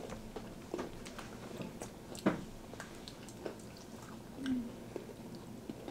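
Children biting and chewing pieces of peanut butter Twix bar, with scattered small crunching clicks from the biscuit layer, the sharpest about two seconds in.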